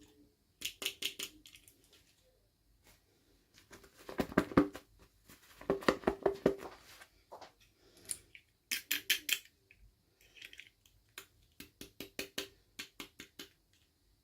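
Small plastic toy packaging being handled: several short bursts of quick, sharp clicks and crackles with quiet gaps between them.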